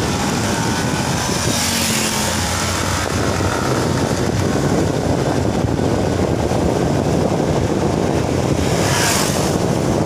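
Motorcycle running steadily while riding along a road, with wind rushing over the microphone; the wind hiss swells twice, around two seconds in and near the end.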